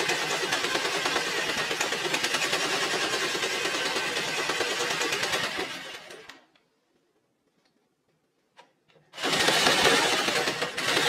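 Electric jigsaw rigged to drive a hacksaw blade, running and sawing through steel square tube with a fast, even rasping rhythm. It winds down and stops about six seconds in, two small clicks follow, and it starts up again about nine seconds in.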